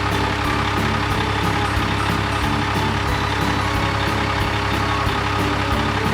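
Truck engine sound effect running steadily.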